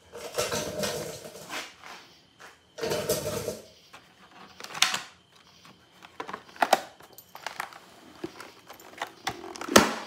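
Plastic rustling and sharp clicks from an HJC i90 modular motorcycle helmet as its chin bar is unlatched and the helmet is pulled off. Two scraping stretches come in the first few seconds, then single clicks at about five and seven seconds in, and the loudest click near the end.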